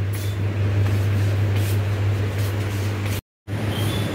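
Supermarket background noise: a steady low hum under a wash of general noise, dropping out completely for a moment about three seconds in.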